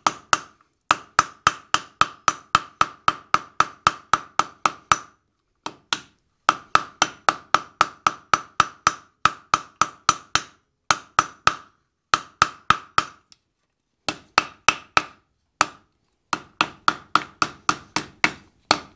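Hand hammer striking red-hot steel seated in a bottom rivet setter on an anvil, rounding the bar end into a ball. The blows come in quick runs of about four or five a second, broken by short pauses, and each blow rings at the same clear pitch.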